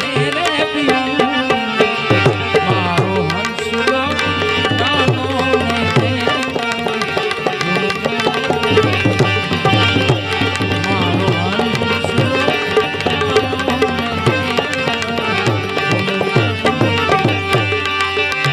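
Santvani devotional music without singing: tabla playing a steady, busy rhythm under a bending, pitched melody line.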